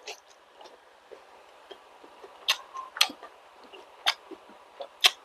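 Wet mouth sounds of a person eating: chewing with irregular sharp lip smacks, four of them louder than the rest.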